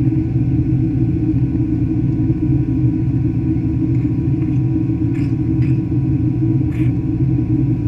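Steady low rumble of a Boeing 767-300's engines and rushing airflow, heard inside the cabin in flight, with a few faint short clicks about five to seven seconds in.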